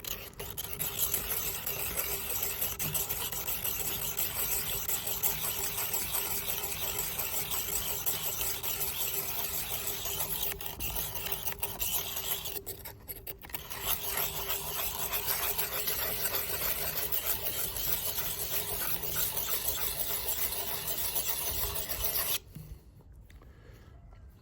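Steel blade of Felco No. 2 pruning shears rasping over a diamond sharpening plate, held at a slight angle, as the cutting edge is sharpened. The rasping runs on with one short pause about halfway and stops shortly before the end.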